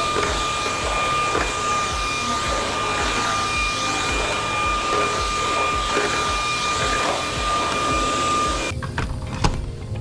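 Cordless stick vacuum running with a steady high whine, switched off near the end, then a sharp knock.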